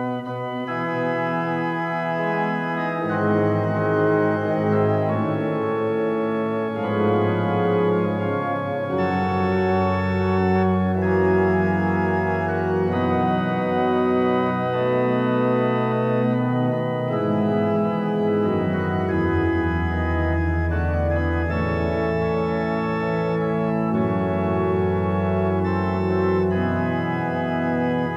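Organ playing slow, sustained chords over a bass line that moves to a new note every few seconds.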